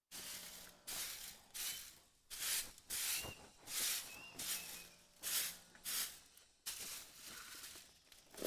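Rhythmic rasping strokes, about one and a half a second, each a short burst of hissing noise, with a few faint high chirps among them.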